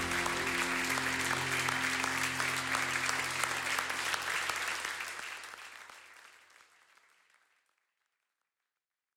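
Applause over the last held chord of a worship song, fading out from about four seconds in until it is gone.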